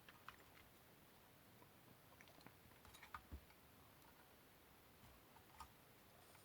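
Near silence: room tone with a few faint, scattered clicks and taps, the loudest a little after three seconds in.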